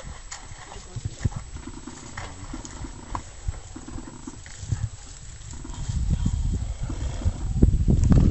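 Wolves growling and snarling in short rough bouts as they scuffle, with scattered knocks and rustles. A louder low rumbling noise builds over the last couple of seconds.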